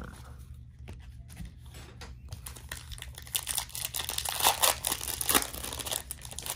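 A plastic-foil Panini Prizm trading-card pack being torn open and crinkled in the hands. It starts with a few light clicks of cards being handled, then grows louder with rustling and crackling from about halfway in.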